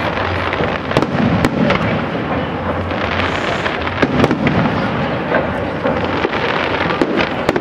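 Professional aerial fireworks shells bursting one after another: sharp bangs every second or so over a continuous crackling din.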